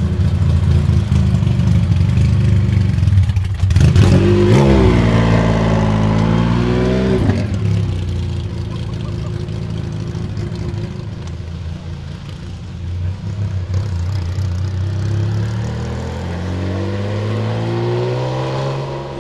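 Singer DLS Turbo's straight-piped twin-turbo 3.8-litre flat-six idling, then revved hard once about four seconds in for about three seconds before settling back to idle. Near the end the engine note rises steadily as the car pulls away.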